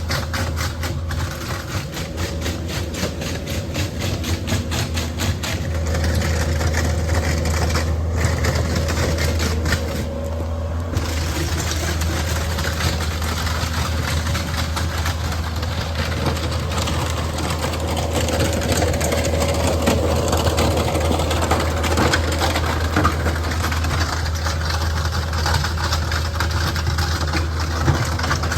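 An engine running steadily at idle with a deep, even hum, getting a little louder about six seconds in.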